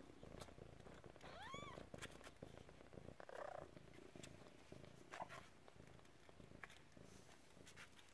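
Faint, steady purring of a tabby mother cat lying with her one-week-old kittens. About a second and a half in comes one short, high kitten mew that rises and then falls.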